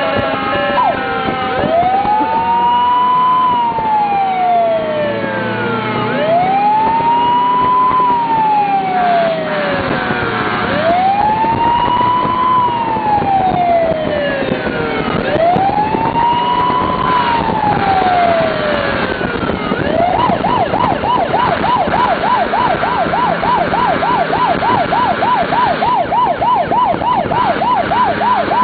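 Emergency vehicle siren sounding a slow wail, rising and falling four times about every four and a half seconds, then switching about two-thirds of the way in to a fast yelp of roughly three sweeps a second.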